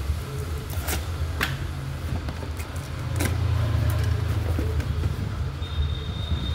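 A low rumble under sharp clicks and snips of scissors cutting the plastic shrink-wrap on a cardboard shoebox, then the box being handled. A faint high, thin tone comes in near the end.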